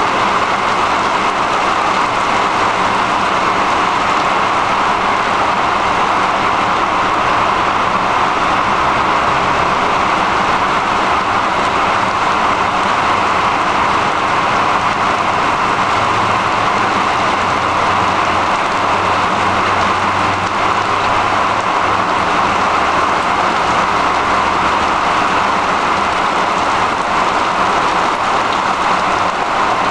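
Steady rain from a monsoon thunderstorm, falling without a break as an even hiss.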